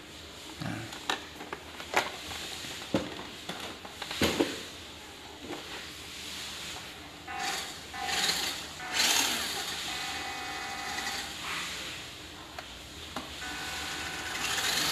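Clicks and knocks as a WPL D12 RC mini truck is switched on and handled, then from about halfway its small electric drive motor and gears whirring in several short spells as the throttle is worked.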